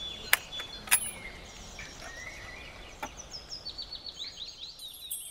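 Bolt of a scoped bolt-action rifle being worked by hand: two sharp metallic clicks a little over half a second apart, then a fainter click about three seconds in. Small birds chirp and sing throughout.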